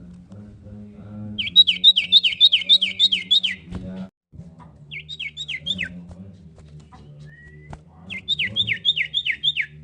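Common iora singing: three quick runs of sharp, high, down-slurred notes, a long run of about ten, a short run of four, then about seven near the end.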